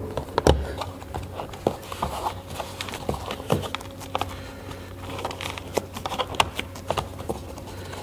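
Irregular clicks and knocks of a plastic A-pillar trim panel being hung back onto the pillar, its clips snapping into place, with the loudest knock about half a second in.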